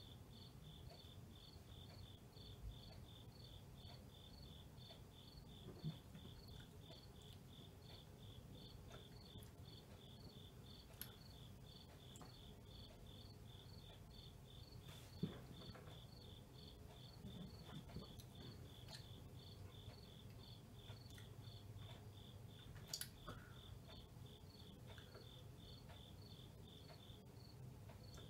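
Near silence: room tone with a faint, very regular high chirping, a little over two chirps a second, and a few soft clicks.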